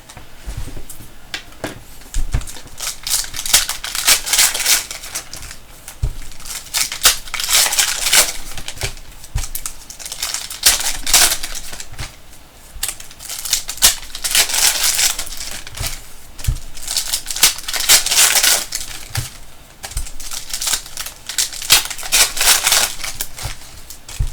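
Trading cards being flipped through and shuffled by hand, a run of quick papery flicks and clicks that comes in clusters every second or two, with an occasional soft knock of the stack on the table.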